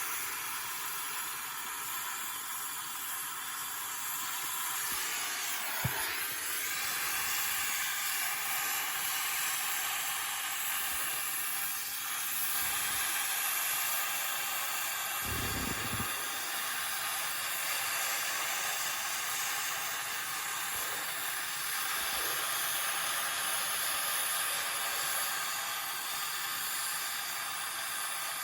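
Steady hiss, with a sharp knock about six seconds in and a short low thud just past fifteen seconds.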